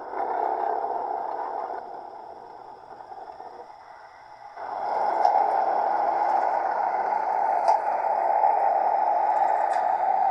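Digital sound of an electric locomotive from a D&H SD21A-4 decoder in an H0 Brawa EG 4x1/1 model, played through a small 11x15 mm speaker in a 3D-printed sound box: a steady rushing running noise that eases off for a few seconds, then swells louder about halfway through, with a few faint clicks.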